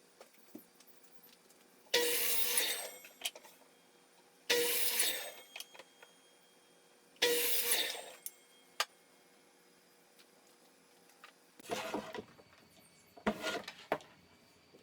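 Three short scraping strokes about two and a half seconds apart, each starting sharply and fading within a second, followed near the end by a few clattering knocks: hand work on wood.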